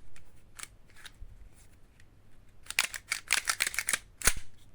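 Airsoft pistol, a VFC FNS-9, being handled: a few faint clicks, then a quick run of small clicks and rattles, with one sharper click near the end.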